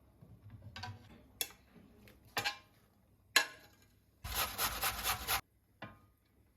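Household handling noises: three sharp knocks or clatters about a second apart, then a rough scraping rub of about a second in several quick strokes, and one last light click.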